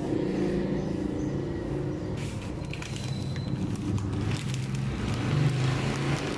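Pot of water at a boil, bubbling and crackling as dry spaghetti is fed in, over a low droning hum whose pitch shifts every second or so.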